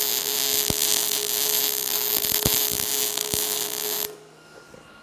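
Wire-feed (MIG) welder laying a bead to weld a steel grab hook onto square steel tube: a steady hiss with a few sharp pops, cutting off about four seconds in when the arc stops.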